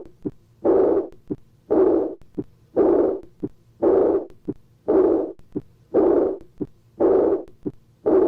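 Heart auscultated through a stethoscope at the second right intercostal space, about one beat a second. Each beat has a short sharp heart sound, then a loud murmur that starts abruptly and fades over about half a second: the early diastolic murmur of pure aortic incompetence (aortic regurgitation) of syphilitic origin.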